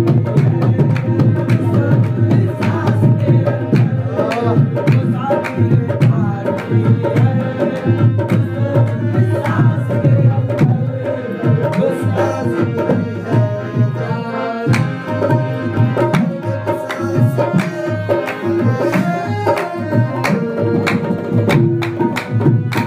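Qawwali music: tabla playing a dense, fast rhythm over steady held harmonium notes.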